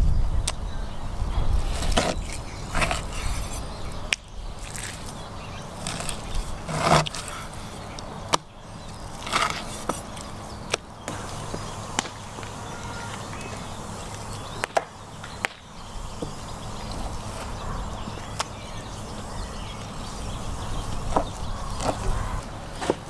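Knife cutting raw crocodile meat on a cutting board: scattered sharp knocks of the blade on the board, with some scraping.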